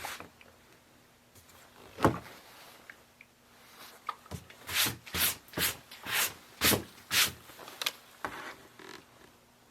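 Handling noise from a freshly fuelled Stihl MS192T chainsaw. One knock comes about two seconds in, then a run of about seven short swishing sounds a little under half a second apart around the middle.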